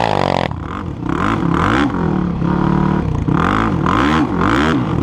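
Quad bike engine revving hard, its pitch sweeping up and down over and over as the throttle is worked while riding fast, with wind rushing over the microphone.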